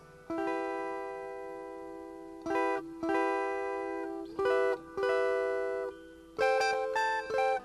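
Music: a plucked guitar playing notes and chords that ring out and slowly fade, each new note starting sharply.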